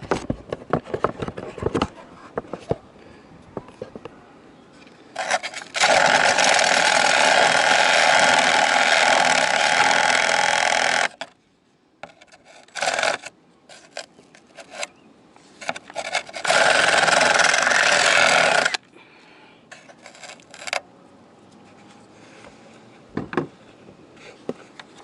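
Electric drill running under load, widening a hole with a bit that is too small: one long run of about five seconds, a few short bursts, then a second run of about two seconds.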